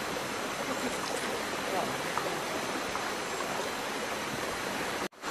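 Steady rushing of running water, like a forest stream, that cuts out for a moment near the end.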